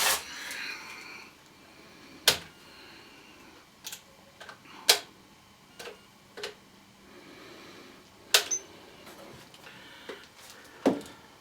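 Scattered sharp clicks and taps, about ten at uneven intervals, as test-meter probes and leads are handled and set against the wiring terminals.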